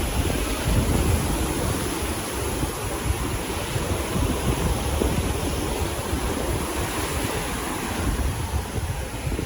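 Steady wash of sea surf breaking on a beach, with wind buffeting the microphone in a low rumble.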